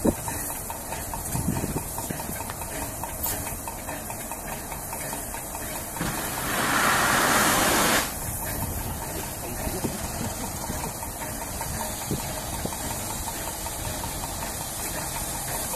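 USATC S160 2-8-0 steam locomotive releasing steam: a loud hiss starts about six seconds in, lasts about two seconds and cuts off sharply, over a steady low rumble from the engine.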